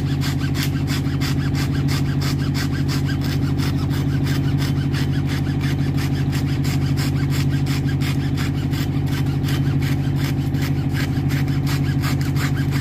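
Hacksaw sawing through a thick braided mooring rope in quick, even back-and-forth strokes. A steady low engine hum runs underneath.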